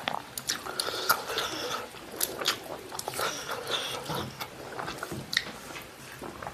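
Close-up wet chewing and lip-smacking of a person eating, with irregular clicks and pops, and fingers picking through rice and soft boiled pork stomach.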